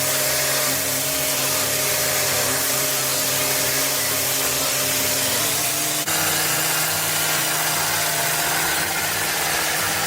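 Engine-driven mechanical brush scouring a hard surface: a loud, steady hiss of bristles over an engine hum, with a brief break about six seconds in.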